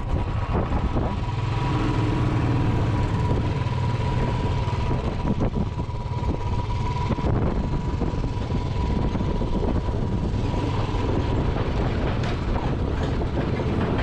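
Royal Enfield single-cylinder motorcycle ridden over a rough stony track: the engine runs steadily under continuous rattling and jolting from the surface.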